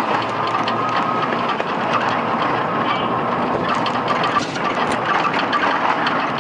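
Steady engine and road noise of a moving vehicle heard from on board, with a constant clatter of small rattles and knocks from the vehicle on a rough road.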